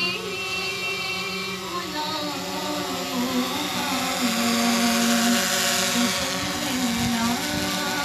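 Steady multi-tone whine of a small quadcopter drone's motors and propellers. Under it, a voice chants a naat over a loudspeaker.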